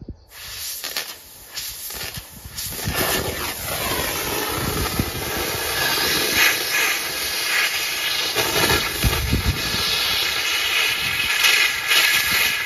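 Arcair SLICE exothermic thermal lance: oxygen hissing through the rod with a few crackles as it is struck, then, from about three seconds in, a steady loud hissing burn with crackling as the burning rod melts out the middle of a rust-seized 1-inch steel pin.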